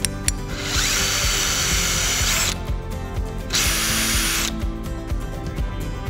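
Power drill running in two bursts, the first about two seconds long and the second about one second, driving in screws to mount a plate.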